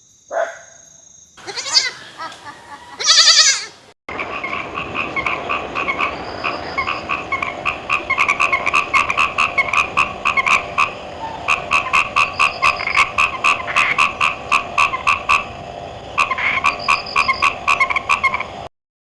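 Frogs croaking in a rapid pulsed series, about four croaks a second, in three runs with short pauses between them, stopping abruptly near the end. A few short, different sounds come before the croaking begins, about four seconds in.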